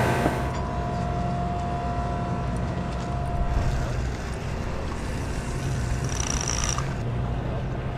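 Steady low hum of a large fishing boat's machinery. A short high whine comes about six seconds in.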